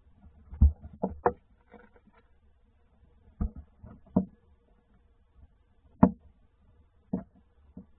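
Tawny owl moving about inside a wooden nest box: irregular knocks and thumps, about seven in a few seconds, with soft scraping as it shifts on the wood-chip floor.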